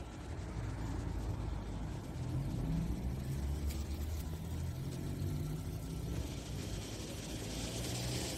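Street traffic sound: a car engine running with a low hum, joined by a building hiss of road noise over the last couple of seconds.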